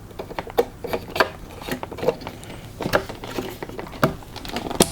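Light plastic clicks and knocks of a DDR4 RAM stick being handled and pressed into a motherboard memory slot, with a louder click near the end.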